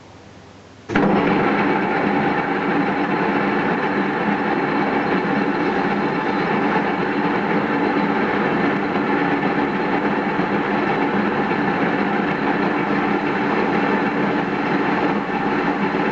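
Metal lathe running steadily, a loud even machine sound with several fixed tones from its motor and gearing, coming in abruptly about a second in.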